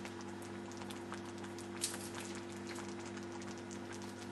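Thick chili simmering in a saucepan, with scattered small pops and spits of bursting bubbles over a steady low hum.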